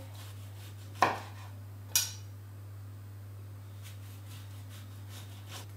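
Kitchen knife slicing a tomato and knocking on a wooden cutting board: two sharp knocks about a second apart, then a couple of faint ticks.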